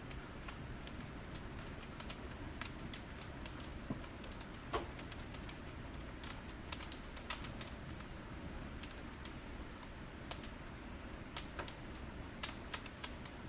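Burning firewood crackling: irregular sharp pops and snaps over a steady low rush of flame, with one louder pop about five seconds in.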